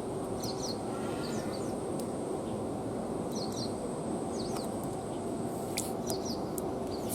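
Outdoor ambience: small birds chirping in short, quick calls every second or so over a steady background hiss, with a thin, steady high tone.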